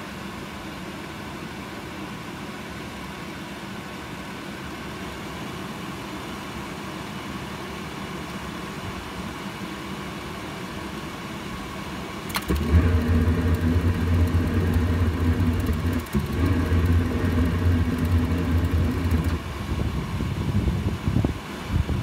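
Atwood RV furnace running its blower with a steady hum. About twelve seconds in there is a sharp click, and the burner lights with a loud low rumble that lasts about seven seconds, then falters and dies away near the end.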